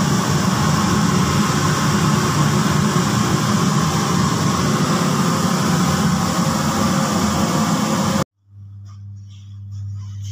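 Steady loud rushing machine noise with a low hum in it, cut off abruptly about eight seconds in. A quieter low steady hum follows for about two seconds.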